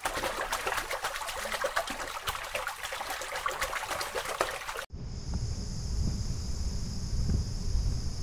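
Water trickling and splashing, cut off abruptly about five seconds in. Then a steady high-pitched insect chorus with a low wind rumble on the microphone.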